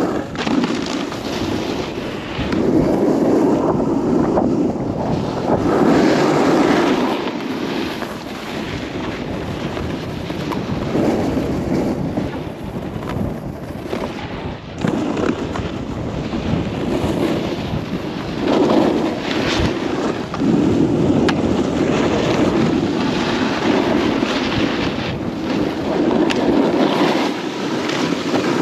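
Snowboard sliding and carving over packed snow, a rough scraping rush that swells and fades with each turn, mixed with wind buffeting the microphone.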